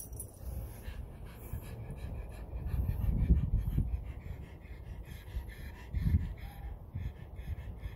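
Pug panting in short, even breaths, about three a second, with low rumbling on the microphone that is loudest about three seconds in.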